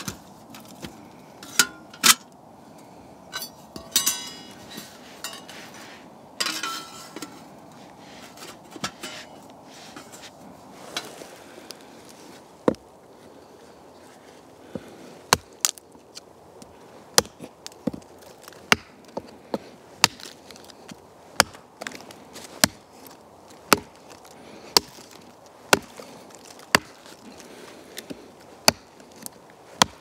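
The stainless steel plates of a folding Firebox stove clinking and clicking as they are slotted together. Then a Gränsfors axe chopping into a dry, weathered stump, about one stroke a second.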